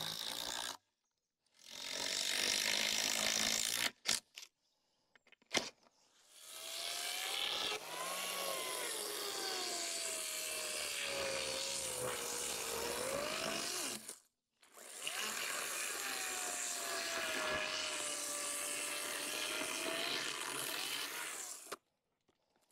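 Small cordless chainsaw cutting through old wooden boards in several separate runs. Its motor pitch sags as the chain bites into the wood and picks up again as the cut eases.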